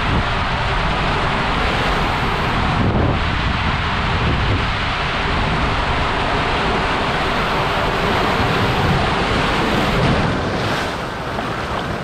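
Water rushing and a rider sliding down inside an enclosed water slide tube: a loud, steady rush of noise. It eases slightly near the end as the rider leaves the tube for the splash pool.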